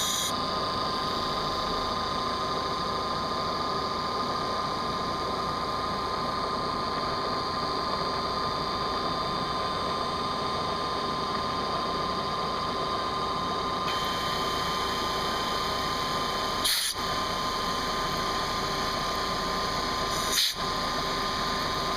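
CNC milling machine running, its spindle giving a steady high-pitched whine over the machine noise. The high tones shift twice, and there are two brief sharp sounds near the end.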